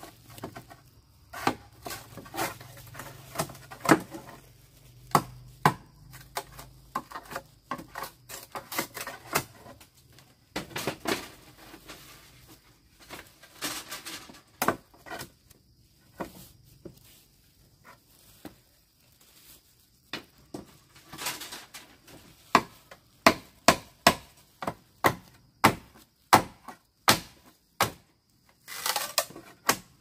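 Irregular series of sharp blows of a hand tool striking wood, with a pause of a few seconds around the middle.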